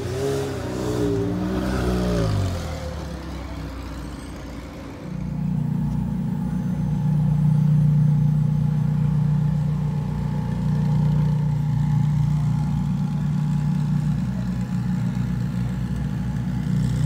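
McLaren 720S supercar engines, twin-turbo V8s, running as the cars move past. For the first two seconds or so the engine note rises and falls in pitch. From about five seconds in it settles into a steady low drone.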